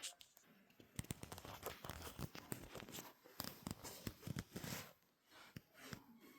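Close rustling and crackling: dense, irregular scratchy clicks and scuffs from about a second in, dying away near the end.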